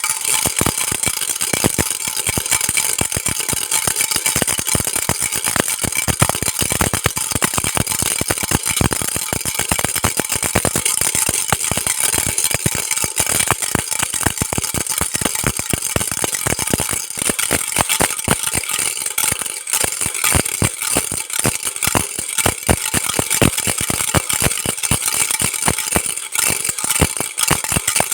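Baby rattle shaken continuously: a dense, steady stream of small clicks and rattling.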